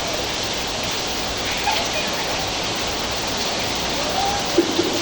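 Heavy rain pouring down in a steady, dense hiss, with a faint voice briefly heard near the end.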